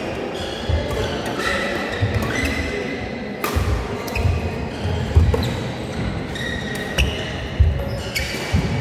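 Badminton rally: several sharp racket strikes on the shuttlecock, short squeaks of court shoes on the mat, and the low thuds of footsteps and lunges.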